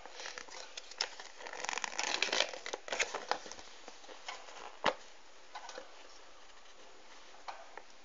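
A folded paper collector's leaflet being opened out and handled: paper rustling and crinkling, densest about two seconds in, with scattered small clicks and one sharp tap about five seconds in.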